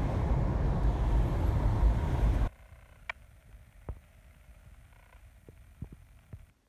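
Road and wind noise from inside a moving car, a heavy low rumble that cuts off suddenly about two and a half seconds in. After that, quiet room tone with a few faint clicks.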